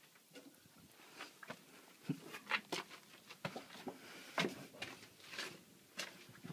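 Irregular footsteps scuffing and crunching on a gritty floor, sparse at first and more frequent and louder from about two seconds in.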